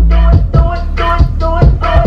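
Hip hop dance track with heavy bass and a punchy beat.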